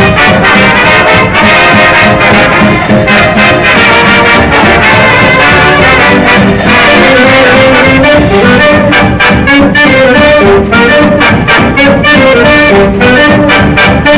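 Swing jazz music, with brass horns playing over a steady drum beat.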